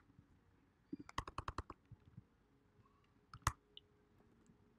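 Faint typing on a computer keyboard: a quick run of keystrokes about a second in, then a short pair of clicks a couple of seconds later.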